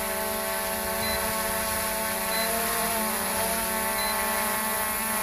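Hubsan H109S X4 Pro quadcopter's motors and propellers humming as it comes back overhead, a steady multi-tone buzz whose pitch wavers around the middle. Short high beeps repeat about every second and a half.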